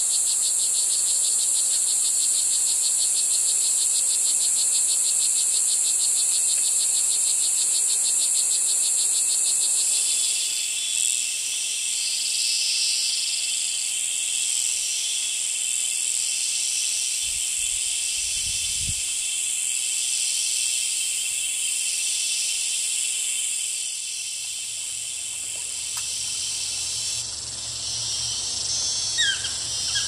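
Dense rainforest insect chorus of high, steady buzzing and trilling. It opens with a fast even pulsing trill, changes about ten seconds in to a call that pulses roughly once a second, and has a few short chirps near the end.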